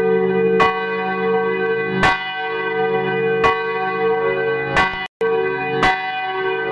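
A single church bell tolling at an even pace, struck about every second and a half, each stroke ringing on into the next. About five seconds in, the sound drops out for an instant.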